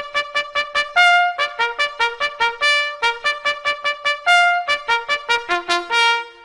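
Trumpet playing a military-style fanfare call: fast tongued repeated notes on a few pitches, with a longer held high note about a second in and again about four seconds in.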